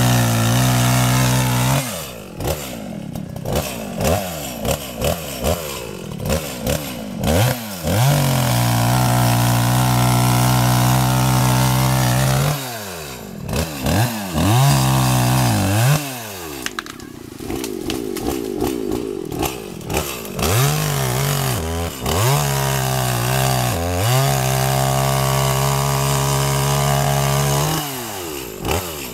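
Echo CS-5100 two-stroke chainsaw running at high revs while cutting through a tree trunk. Between long steady stretches, the engine note repeatedly dips and climbs again as the throttle is eased and squeezed.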